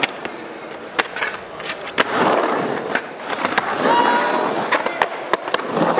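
Skateboard on concrete: sharp clacks about once a second, and a rough scraping as a truck grinds along the edge of a concrete ledge.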